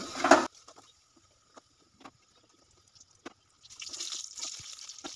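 Samosas frying in hot oil in a karai: a few scattered pops, then a steady sizzling hiss that starts a little past halfway.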